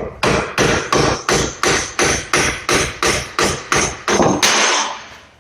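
Plastic mallet repeatedly striking a knurled strut-to-steering-knuckle bolt to drive it out of its bore, a quick even run of blows, about three a second, that stops near the end.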